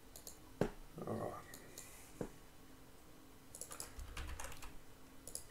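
Typing on a computer keyboard: a few isolated key or mouse clicks, then a quick run of keystrokes about three and a half seconds in.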